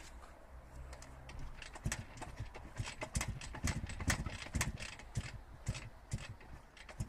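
Kick-starting a WSK 175 Kobuz's two-stroke single-cylinder engine: irregular clattering knocks from the kick lever and the engine turning over without catching, starting about two seconds in.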